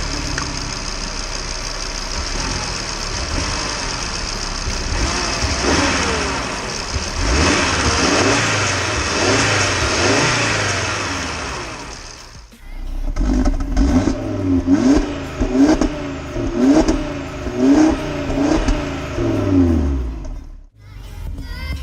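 Audi RS3's 2.5 TFSI turbocharged five-cylinder engine running, then, after a short drop, revved in about eight quick throttle blips, roughly one a second.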